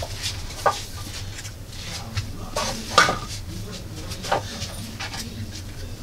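Several light knocks and clicks as a small wooden computer case is handled and turned over, the sharpest about three seconds in, over a steady low hum.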